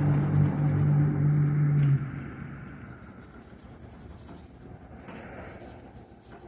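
A steady low mechanical hum that cuts off abruptly about two seconds in, followed by faint scratching and small clicks.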